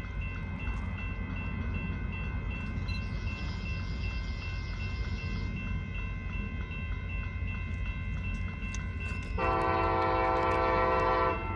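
Locomotive air horn sounding one long blast of about two seconds near the end, over a steady low rumble from the approaching train.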